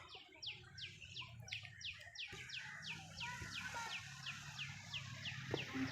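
A bird calling over and over, a steady series of short falling chirps, about three a second, over a low steady hum.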